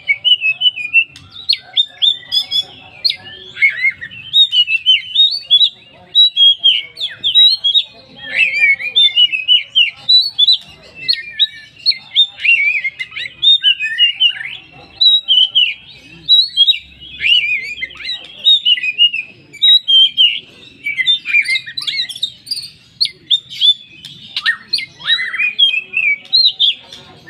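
Oriental magpie-robin (kacer, the poci form) singing a long, unbroken run of quick, varied chirping phrases packed with mimicked calls of other birds. It is a 'pancingan' song played to set a caged kacer singing.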